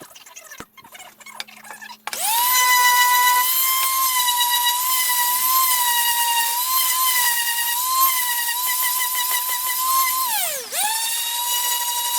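A small high-speed electric power tool spins up about two seconds in and runs with a high, steady whine that wavers slightly as it meets the work. About ten seconds in it winds down briefly, then starts up again.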